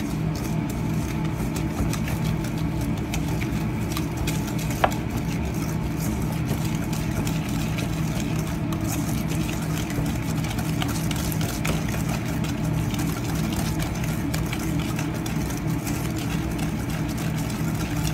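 A wire whisk beating egg yolks, sugar and cornstarch in a stainless steel bowl, with light repeated clicks and scrapes against the metal and one sharper click about five seconds in. A louder steady low machine hum of kitchen equipment lies under it.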